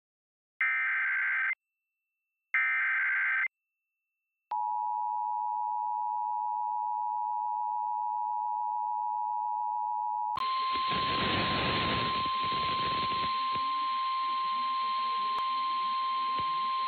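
Emergency Alert System broadcast: two bursts of the SAME header data, a harsh digital screech of about a second each, then after a short gap the two-tone EAS attention signal held steady for about six seconds. About ten seconds in it switches to hissy radio static carrying a single steady alert tone.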